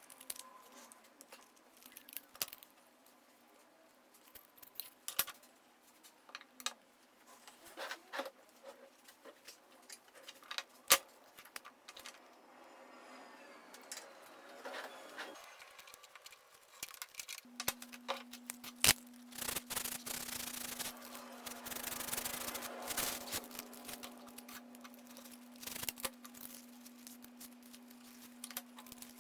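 Handling noises from small parts being worked on: scattered clicks and taps with rubbing and scraping. A steady low hum starts about two-thirds of the way through.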